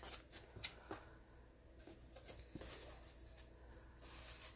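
Faint handling sounds of a cardboard box being turned over in the hands: a few light taps and scrapes of fingers on the cardboard, with a soft rustle near the end.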